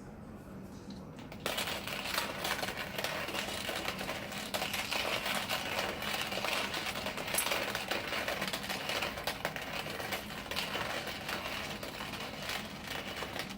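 AROMORY manual coffee grinder being hand-cranked, its ceramic conical burrs crushing coffee beans at a drip-coffee setting. A continuous dense crunching that starts about a second and a half in and stops just before the end.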